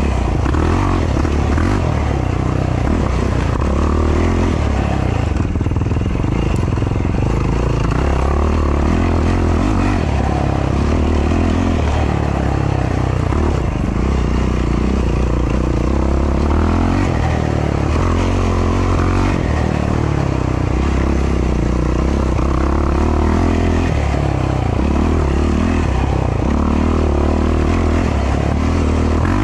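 Yamaha YFZ450R quad's single-cylinder four-stroke engine, heard onboard and running loud throughout, its revs surging and easing every second or two as the throttle is worked on a slow, twisty trail.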